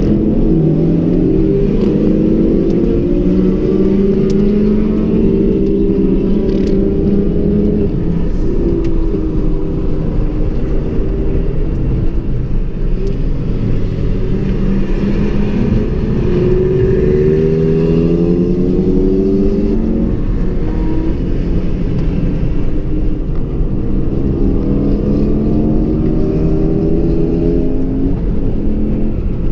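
Ford Focus RS's turbocharged four-cylinder engine heard from inside the cabin under hard driving on a track, its pitch climbing as it pulls through the gears and dropping at each lift or shift, several times over, with steady tyre and road noise underneath.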